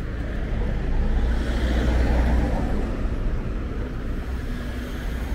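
City street traffic noise with a steady low rumble, swelling about two seconds in as a vehicle goes by, then easing.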